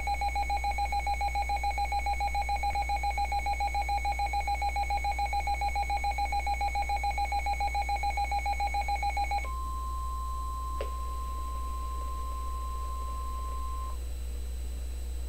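An electronic alert beep pulsing rapidly, about five times a second, for about nine seconds, then a steady single-pitch NOAA Weather Radio warning alarm tone for about four and a half seconds before it cuts off. The tone announces a warning about to be read, here a flood warning.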